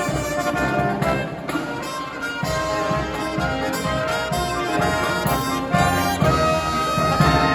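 Brass marching band playing live: trumpets and trombones holding chords that shift every second or two over a low drum pulse.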